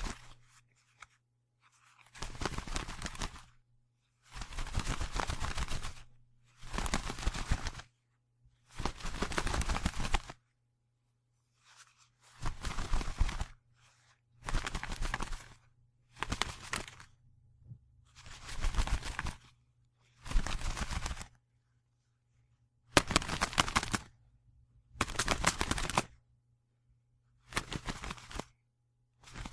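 A bird's wings flapping in rapid flurries, about a dozen bursts of one to two seconds each separated by short pauses.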